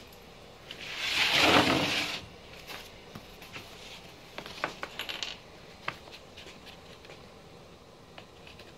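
Honda Civic Hybrid battery pack scraping over a wooden workbench for about a second as it is slid and turned, followed by scattered light clicks and knocks as it is handled.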